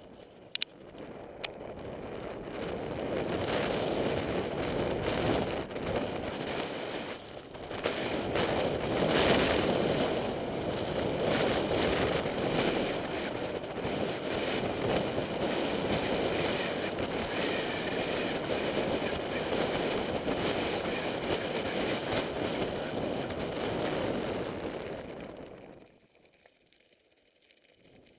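Downhill mountain bike running fast over loose slate gravel: a continuous rough crunching rumble of tyres on stones and the bike rattling, with scattered sharp clicks and knocks and wind buffeting the microphone. Near the end the noise falls off sharply to a low level.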